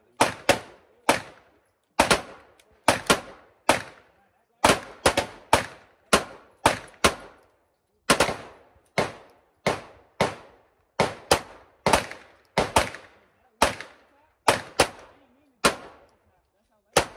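Semi-automatic pistols fired repeatedly at targets, about thirty sharp shots at roughly two a second with short pauses, each followed by a brief echo.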